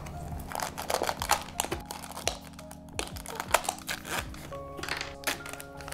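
Crinkling and tearing of a toy's plastic and foil packaging as the peel-off lid and the inner plastic bag are pulled open: many quick, irregular crackles. Soft background music with held notes runs underneath.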